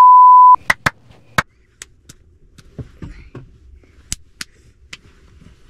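A loud, steady test-card beep cuts off about half a second in. After it comes a string of sharp, irregularly spaced hand claps from a young child.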